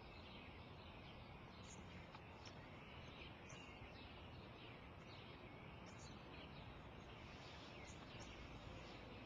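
Faint outdoor ambience: small birds chirping in short calls again and again over a low, steady background hiss.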